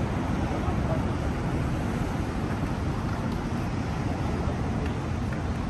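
Steady outdoor city street noise: an even low rumble of traffic and air with no single event standing out.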